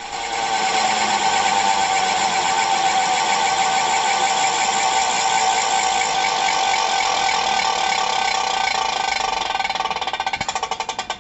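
Humming spinning top spinning, giving a steady hum of several notes at once. After about nine seconds the hum starts to pulse rapidly as the top slows and wobbles.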